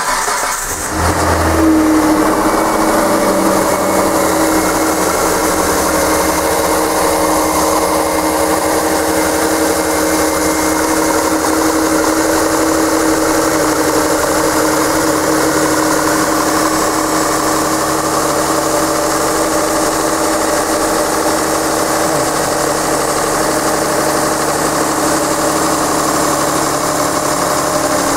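2008 Hyundai Sonata's 2.7 V6 engine starting, catching within the first two seconds, then idling steadily.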